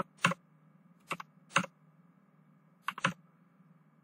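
Computer keyboard being typed on: about six separate keystrokes at uneven intervals, with a pause in the middle.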